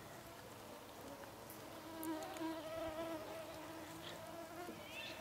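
Flying insect buzzing close by: a faint, wavering hum that swells about two seconds in and then fades back.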